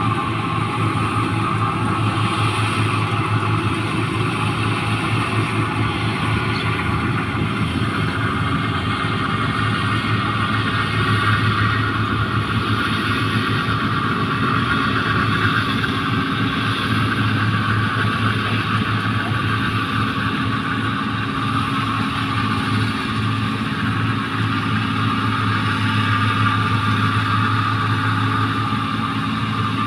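New Holland 1545 rice combine harvester running steadily as it harvests paddy: engine and threshing machinery making a constant low hum with a steady higher whine above it.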